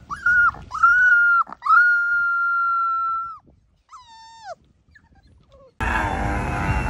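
Black puppy whining: a few short rising yelps, then two long, high, steady whines, and a falling whine about four seconds in. Near the end a louder noisy background with music cuts in suddenly.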